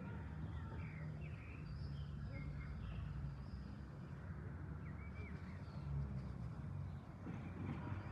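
Small birds chirping and singing in short, scattered calls over a steady low rumble.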